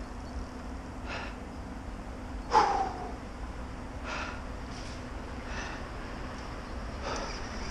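An angler breathing hard close to the microphone: short, breathy puffs every second or so, with one louder short grunt about two and a half seconds in. He is straining to play a big fish on the rod.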